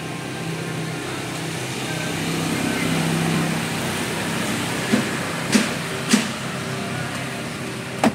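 Sharp clicks as hands work at the side-mirror mount in the corner of a 2013 Hyundai Elantra's door: three about half a second apart past the middle, and one more near the end, over a steady low hum.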